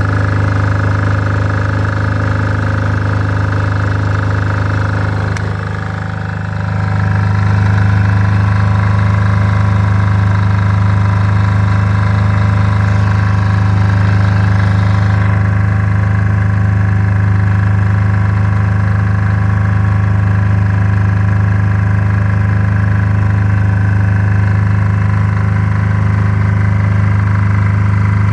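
Kipor KDE 6700TA 5 kVA single-cylinder diesel generator running steadily. About six seconds in its sound dips briefly, then settles into a louder, deeper steady note. The unit runs properly.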